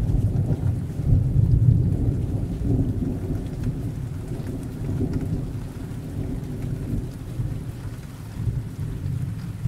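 Thunder rumbling over steady rain, the low rumble loudest in the first couple of seconds and slowly dying away.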